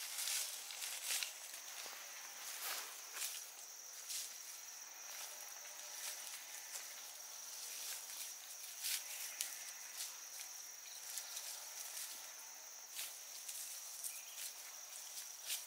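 A steady high-pitched insect trill runs throughout, with scattered short crackles and snaps of plants being handled and picked by hand.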